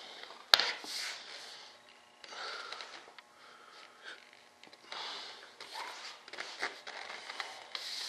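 Handling sounds of a flexible plastic sheet being shifted and rubbed against a wooden strip: short rustles and scrapes, with one sharp tap about half a second in.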